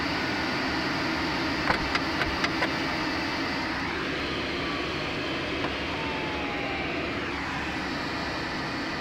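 Steady rush of in-flight noise inside a glider's cockpit during an aerotow, with a quick run of about five clicks about two seconds in.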